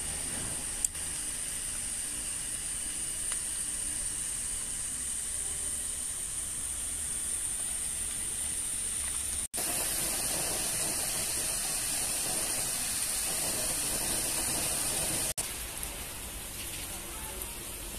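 Gas stove burner lit with a long-nosed utility lighter: a sharp click about a second in, then the burner's steady hiss. After a cut about halfway there is a louder steady hiss, which drops to a softer hiss near the end.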